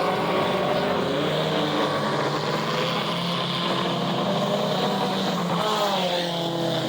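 Race car engines running on the track, several at once, their pitches rising and falling as they go around.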